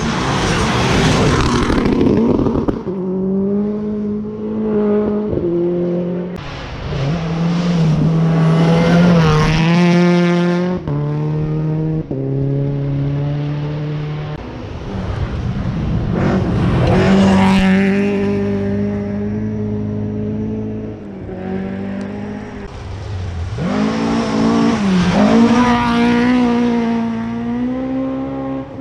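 Rally cars driven flat out on a gravel stage: engines rev hard, the pitch stepping up and down with each gear change, and swelling loud as cars come past several times. Gravel sprays and hisses under the tyres as a car goes by at the start.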